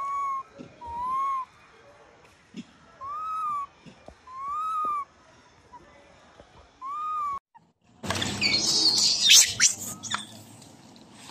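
Baby macaque cooing: about five clear calls, each under a second and rising then falling in pitch, one to two seconds apart. About eight seconds in they give way to a louder stretch of scuffling noise with a few knocks.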